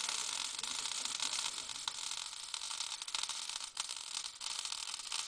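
MIG welding arc crackling and hissing steadily as a bead is laid on the rear axle's spring perch where it meets the axle tube.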